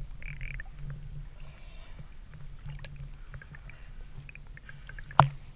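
Sea water lapping and sloshing against an action camera held at the waterline, with small clicks throughout. A single sharp knock comes near the end.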